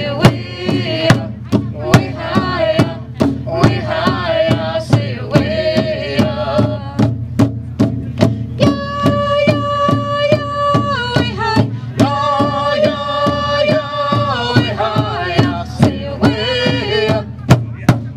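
Native American intertribal song: a gathering drum struck in a steady beat of about two strokes a second under men and a woman singing together. The voices hold long steady notes in the middle, then return to the moving melody.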